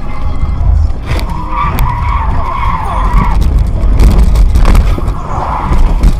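Car tyres squealing in a skid on a wet road, a wavering squeal from about a second in that fades at about three and a half seconds and returns briefly near the end, over a heavy low rumble.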